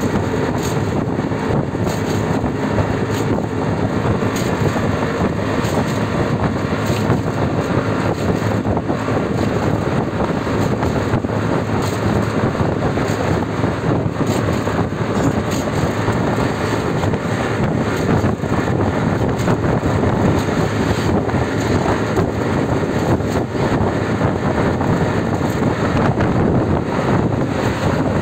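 Steady engine and road noise of a vehicle driving along, heard from inside with the side open, with wind rushing and buffeting over the microphone.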